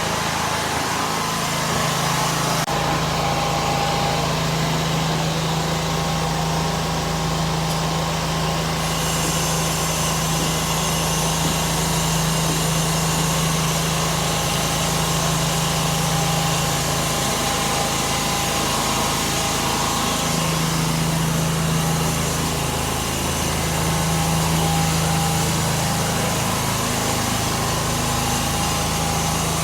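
Portable generator engine running steadily and loudly, with a constant low hum that shifts a little around the middle.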